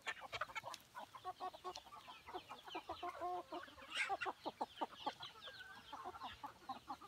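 A flock of free-range village chickens clucking, with many short, scattered calls overlapping.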